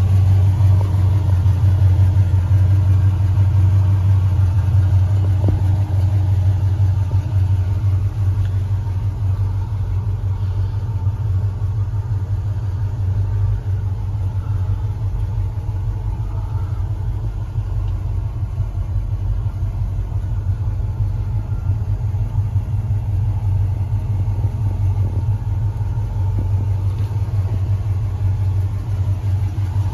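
Chevrolet 396 big-block V8, fitted with headers and dual exhaust, idling steadily with a low, even drone.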